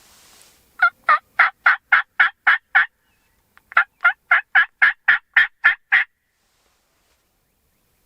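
Turkey yelping: two series of about eight evenly spaced yelps each, roughly three a second, with a short pause between the series.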